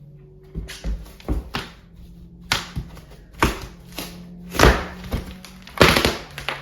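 A series of knocks and thuds on wood, about a dozen in a few seconds, the two loudest near the end: building materials being knocked and broken loose during interior demolition.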